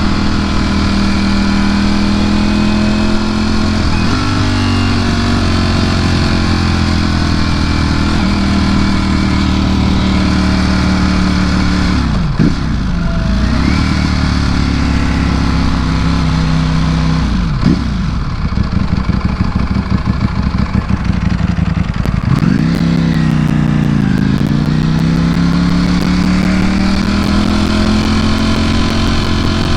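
2019 Ducati Panigale V4 S's 1,103 cc V4 engine running under way, heard from the rider's seat. Its note holds fairly steady, then three times falls away and climbs back up as the rider rolls off and gets back on the throttle.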